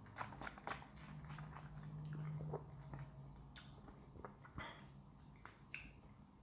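Faint wet mouth sounds of whisky being tasted: small lip smacks and tongue clicks as the spirit is worked around the mouth, with a low steady hum from about one to three seconds in.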